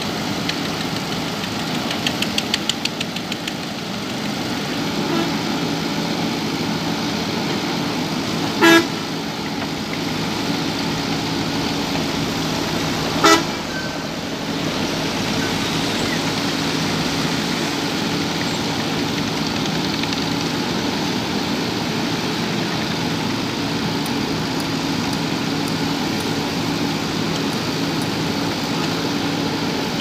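JCB backhoe loader's diesel engine running steadily as it works its backhoe arm, with a brief fast clatter about two seconds in. A vehicle horn toots briefly twice, about nine and thirteen seconds in.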